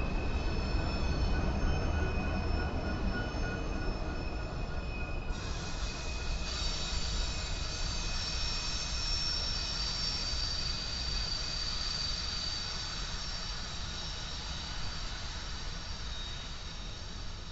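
Covered hopper cars of a BNSF grain train rolling past, steel wheels squealing in steady high-pitched tones over a low rumble. The rear distributed-power locomotive goes by partway through, and the sound fades as the train moves away.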